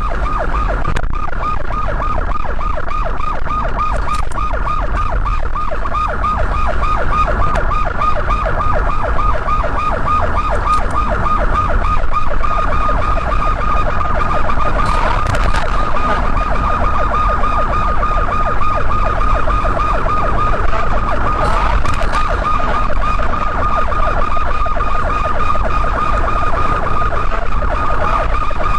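Emergency-vehicle siren wailing in a fast, continuous warble, loud, over steady low road and engine rumble from a car at highway speed.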